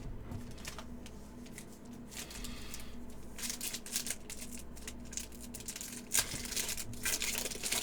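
Trading card pack wrappers and cards being handled: irregular crinkling, rustling and small clicks as packs are torn open and cards shuffled, busier from about halfway through.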